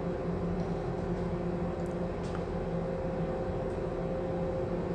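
Steady machinery hum aboard a ship, a constant drone holding several steady tones, with a faint click about two seconds in.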